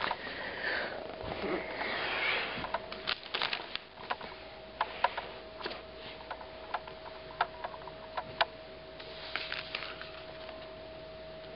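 Handling noise: a brief rustle, then a scatter of light single clicks and taps, a few seconds apart, then another short rustle, over a faint steady hum.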